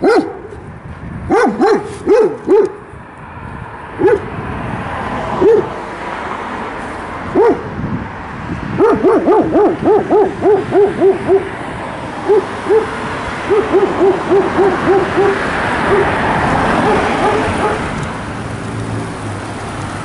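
A dog barking: separate barks at first, then two runs of quick repeated barks about nine and thirteen seconds in. Throughout there is a steady rush of wind noise, which swells near the end.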